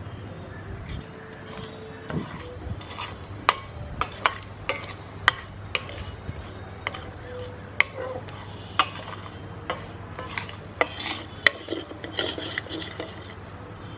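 Wooden spatula stirring dry grains in an iron kadai, scraping and knocking on the metal in irregular sharp clacks, denser scraping near the end. Moong dal, white sesame seeds and cardamom pods are being dry-roasted.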